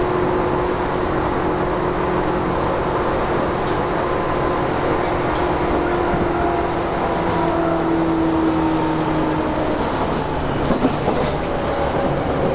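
Running sound of a Tobu 10000 series electric train, heard inside the motor car: the traction motors and gears whine over a steady rumble of wheels on rail. The whining tones fall slowly in pitch as the train slows, and a couple of rail-joint clicks come near the end.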